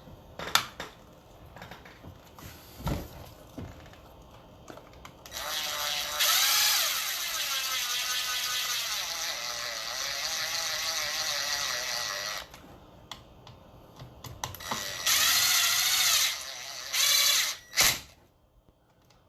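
A small motorized tool runs in bursts, first for about seven seconds and then twice more briefly, its pitch wavering as it works. Scattered clicks and handling knocks come between the bursts.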